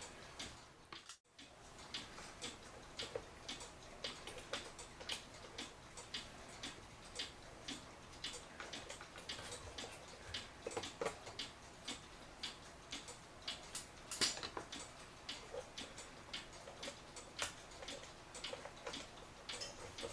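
Clock ticking faintly and steadily, about two to three ticks a second.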